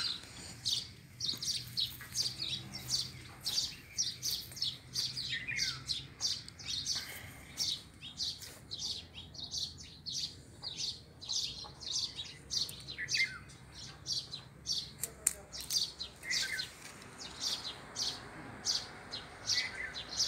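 Small birds chirping rapidly and repeatedly, about three high chirps a second, with a few lower falling calls mixed in.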